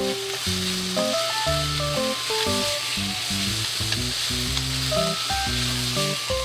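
Food frying in hot oil in a pan, with a steady sizzle and stirring. Background music with a simple melody plays over it.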